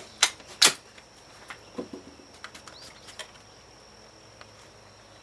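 Bolt of a Finnish M91 Mosin-Nagant rifle being worked to chamber a cartridge: two sharp metallic clacks within half a second, then a few lighter clicks over the next few seconds.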